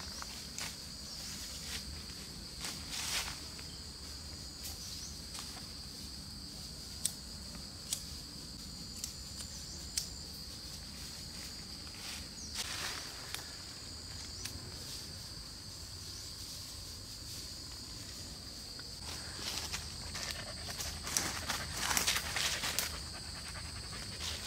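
A steady high insect drone, with footsteps and rustling in dry leaf litter; the rustling gets busier near the end.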